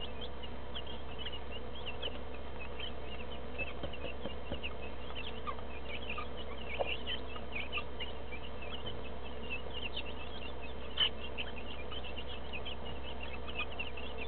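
A flock of two-week-old broiler chicks peeping constantly, with many short, high cheeps overlapping. A steady low hum runs underneath, and there is one sharp click about eleven seconds in.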